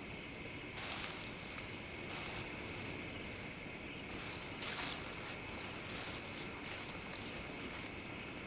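Slow, widely spaced footsteps in dry leaves on a woodland floor, a few soft crunches a second or more apart, over a steady high-pitched drone.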